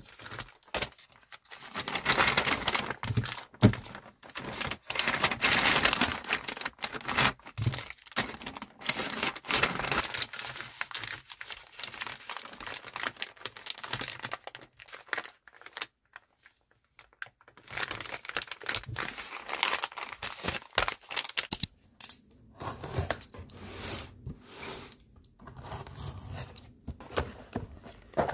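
Plastic sleeves and paper crinkling and rustling as small items are handled and wrapped by hand, in irregular bursts with a brief pause about two-thirds of the way through.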